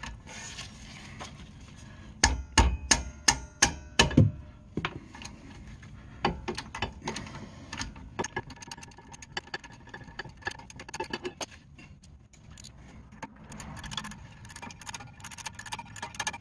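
Rubber mallet striking a wrench on the Volvo XC90's bottom brake-caliper bolt to break it loose: a quick run of about eight sharp blows about two seconds in, followed by lighter clicks and rattles of tools on the caliper.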